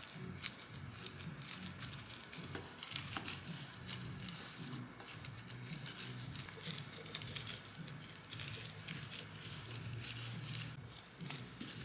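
Irregular rustling and crinkling with light taps and small clicks, the handling noise of kitchen work.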